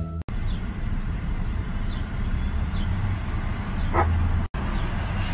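Dog whimpering: a few faint short high whines and one louder short cry about four seconds in, over steady background noise.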